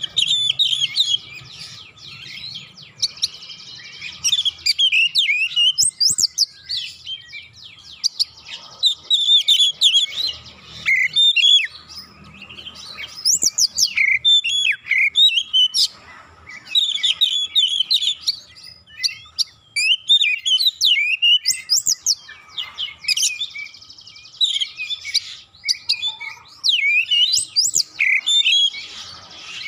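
Oriental magpie-robin singing a dense, rapid-fire song: quick high whistles that rise and fall and chattering notes, run together in phrases of a few seconds with short pauses between.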